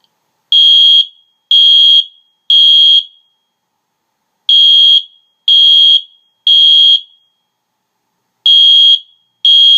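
Wheelock MIZ-24S-W fire alarm horn sounding a loud, steady high tone in the code-3 temporal pattern. It gives three half-second blasts a second apart, then a pause of about a second and a half: two full groups, then the first two blasts of a third.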